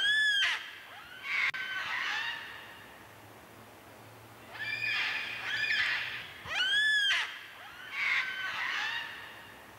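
Forest birds calling: a loud call that rises and falls in pitch at the start and again about seven seconds in, each followed by warbling, chattering phrases.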